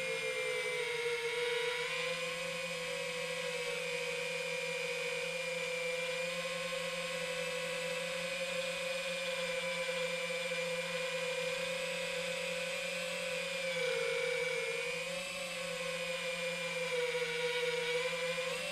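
Four brushless motors of an FPV quadcopter (T-Motor Velox V2207 V2.0, 2550KV) whining steadily in flight. The pitch sags and comes back up briefly a few seconds before the end as the throttle changes.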